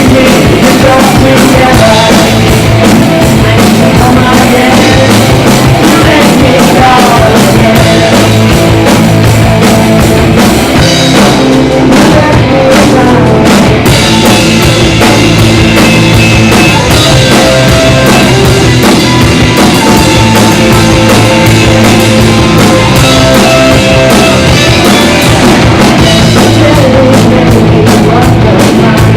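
Live garage rock band playing an instrumental passage: loud distorted electric guitars, bass and a pounding drum kit, heavily compressed.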